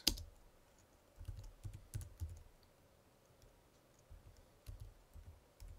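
Typing on a computer keyboard: scattered keystrokes in two short runs, one about a second in and another around four seconds in, as a command is entered.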